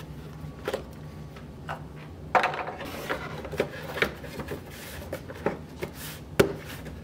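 Hard plastic engine cover of a Duramax 2.8L diesel being set onto the engine and pressed down onto its mounts: a string of irregular plastic knocks and clicks, the loudest about two and a half seconds in and another near the end.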